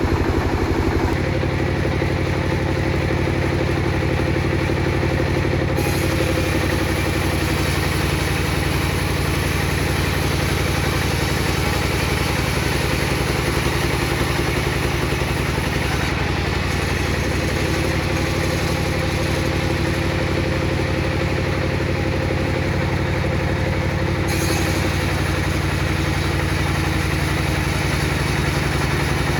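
Table saw running steadily, with a hissing cutting noise added from about six to sixteen seconds in and again from about twenty-four seconds on as the blade works through a thick piece of teak.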